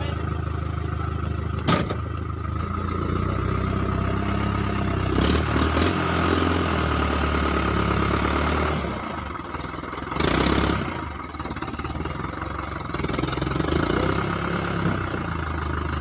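Truck engine idling with a steady low hum, heard from inside the cab. There is a sharp knock about two seconds in and a louder burst of noise about ten seconds in.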